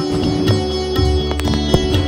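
Instrumental music: held pitched tones with repeated percussion strikes.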